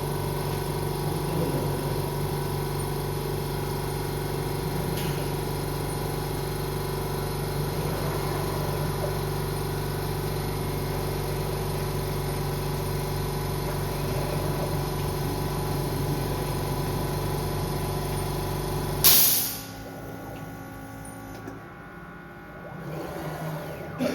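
Pick-and-place machine running a placement job: a steady mechanical hum with several fixed tones. About 19 s in there is a short, loud burst of noise, and then the hum cuts off, leaving a much quieter background.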